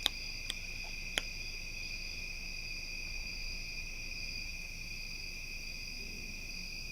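Steady chorus of crickets, an unbroken high-pitched trilling. A few sharp clicks come in the first second or so.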